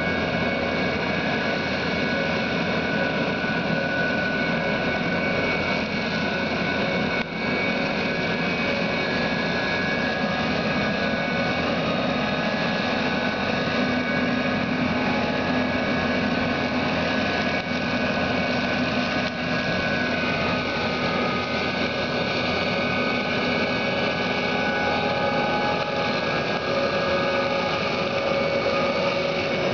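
Tractor engine and an Orsi Royal 550 boom flail mower running steadily, the flail head cutting roadside reeds and grass. A steady mix of engine noise and whining tones, without pause.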